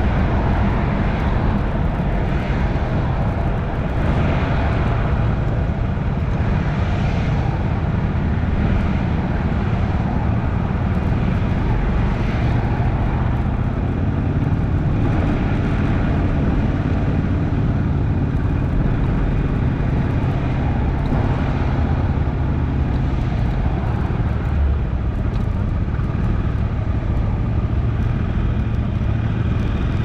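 Yamaha XMAX 300 scooter's single-cylinder engine running steadily while riding, with wind and road noise over it.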